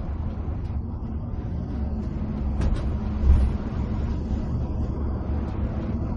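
Inside an intercity bus cruising on the highway: a steady low drone of the engine and the roar of the tyres on the road. A short sharp click comes about two and a half seconds in, followed by a brief low swell.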